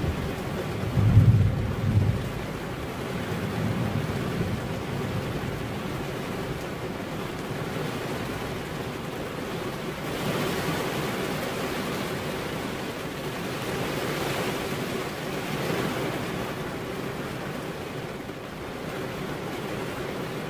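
Steady rain, with a low rumble of thunder just over a second in and a fainter one a few seconds later. The rain swells louder twice in the middle.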